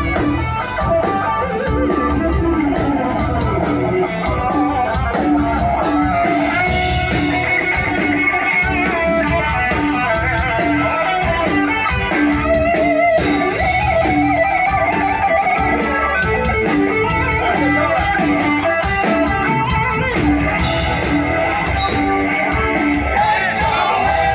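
Live hard rock band playing an instrumental passage: electric guitar carrying the melody over bass and drums, with a steadily repeating riff underneath.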